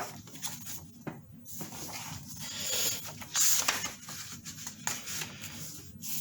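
Rubbing and rustling of a picture book being handled, with a louder brushing sweep about three seconds in.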